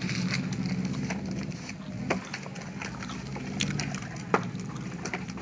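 Hard plastic wheels of a toddler's ride-on toy scooter rumbling and clattering over rough concrete, with a few sharp knocks, the loudest about four seconds in.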